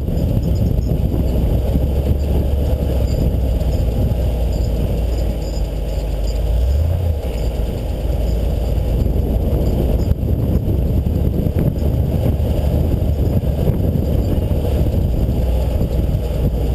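Off-road 4x4 being driven, its engine a loud, steady low rumble with the noise of the drive, swelling briefly about seven seconds in.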